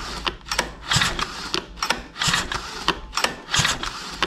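A GX35-clone four-stroke engine's recoil starter being pulled over and over with no fuel in the tank, a rattling clatter about twice a second as the engine turns over without firing. The engine is being cranked dry so the oil works into the bearings and piston before its first start.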